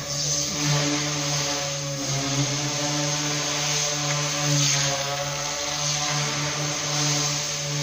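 Small model aircraft's motor and propeller buzzing steadily in flight, the pitch and loudness wavering slightly.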